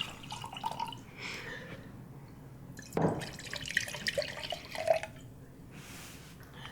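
Liquid being poured from a bottle into a drinking vessel, starting about three seconds in.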